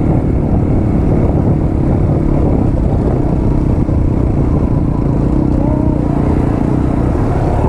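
Single-cylinder 200 cc motorcycle engine running steadily as the bike rides a rough dirt trail, with a constant noise layer over it.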